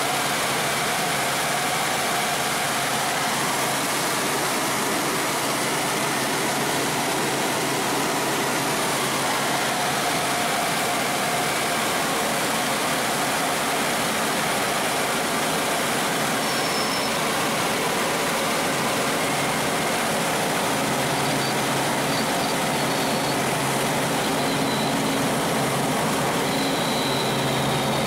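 Helicopter in flight heard from inside the cabin: a steady, unchanging drone of engine and rotors mixed with rushing air noise.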